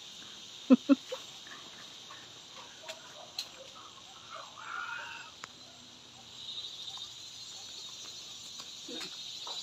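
Steady high-pitched insect chorus of crickets droning in the trees, growing louder after about six seconds. Two short, loud calls come just under a second in, with a few faint calls and ticks later.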